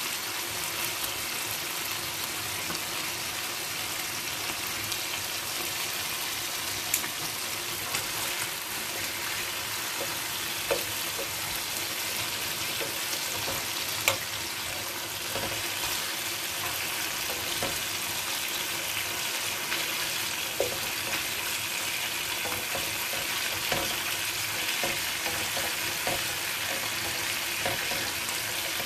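Chicken pieces sizzling steadily as they fry in a sauce in a pan, with a few sharp ticks now and then.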